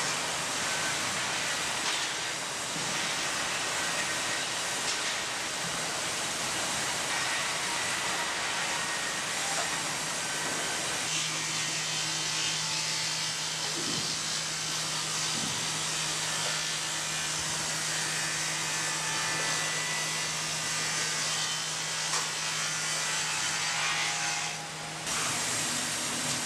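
Sawmill machinery running with steady, continuous mechanical noise; a low steady hum joins in about eleven seconds in, and the noise dips briefly near the end.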